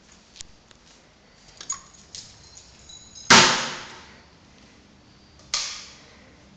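Two sharp bangs about two seconds apart, the first the louder, each ringing on briefly in a bare, echoing room, typical of wooden interior doors being shut. Light clicks and a brief high squeak come just before the first bang.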